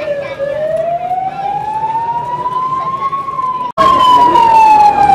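A wailing siren, its pitch gliding slowly up and down over a few seconds per sweep. It breaks off for an instant about four seconds in and comes back louder.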